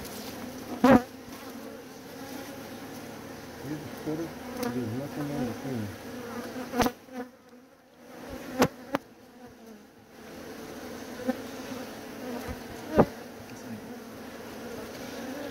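Honey bees buzzing steadily around exposed comb, their pitch wavering up and down as individual bees fly close. A few sharp taps or knocks cut through the buzz, the loudest about a second in and near the end.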